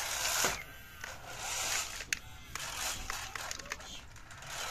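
Small homemade RC off-road car rolling over dirt and loose gravel: a rustling crunch under the tyres with scattered sharp clicks of small stones, louder in the first half second.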